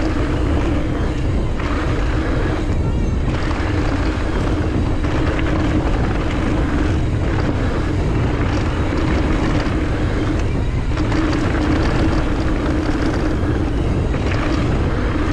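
Wind buffeting the microphone of a mountain biker's camera while the bike rolls fast down a dirt trail. A steady hum runs through the rumble and drops out briefly a couple of times.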